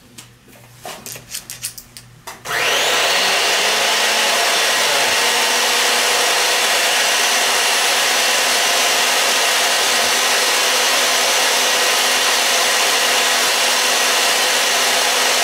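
A few metal clicks, then about two and a half seconds in a pipe-threading machine's electric motor starts and runs steadily, spinning the pipe while the die head cuts threads on black pipe.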